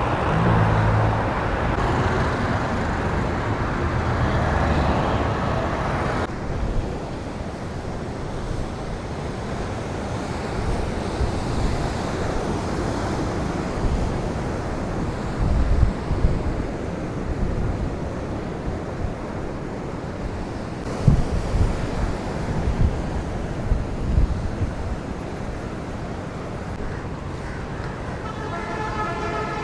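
City street traffic: motor vehicles running and passing, with a few low thumps, and a vehicle horn sounding near the end.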